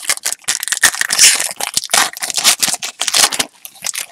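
Foil wrapper of a trading-card pack being torn open and crinkled by hand, a loud irregular crackling that stops near the end.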